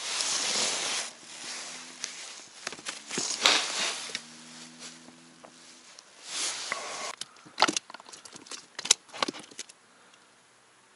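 Close handling noise from gloved hands working with a caught fish and fishing tackle in an inflatable boat: rustling and scraping bursts, then a run of sharp clicks in the second half.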